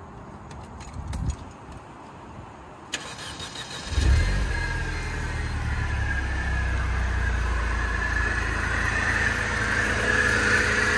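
Mercedes-Benz C230 Kompressor's supercharged 1.8-litre four-cylinder started from cold. The starter turns about three seconds in, the engine catches a second later, then it settles into a steady idle with a high whine above it.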